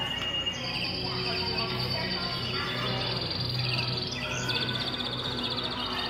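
Recorded canary song played from an animated caged-canary effect: rapid high trills and chirps in two stretches, the second starting about four and a half seconds in, over a low steady background drone.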